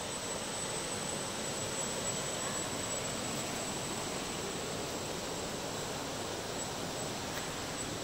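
Rocky forest stream rushing over boulders: a steady, even rush of water.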